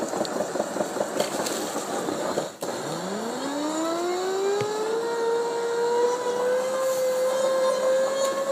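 Electric motor of dryer-vent cleaning equipment: a rattling, scraping noise for the first couple of seconds, then the motor switches on about three seconds in. It spins up in a rising whine and settles into a steady hum.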